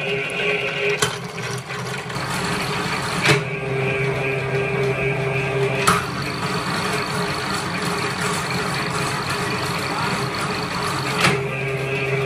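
Belt-driven cable stripping machine running steadily, its grooved steel rollers turning as a cable is fed through, with a few sharp clicks.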